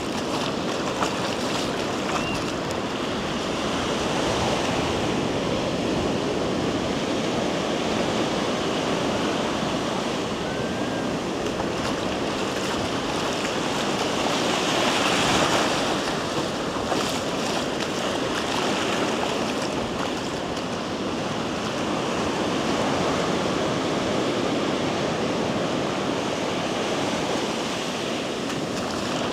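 Ocean surf breaking and washing up a sandy beach: a continuous rush of waves that swells louder about halfway through.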